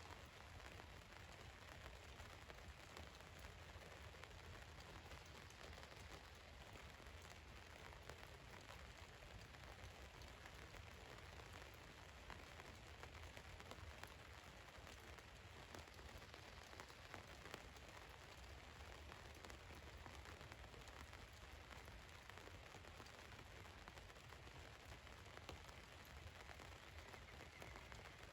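Rain falling on a van's roof: a faint, steady patter with many small drop ticks.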